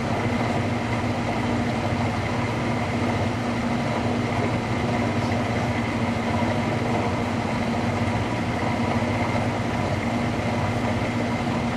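Front-loading washing machine on its drain-and-spin cycle, giving a steady mechanical hum with a constant tone that neither rises nor falls, as the water drains before the spin picks up speed.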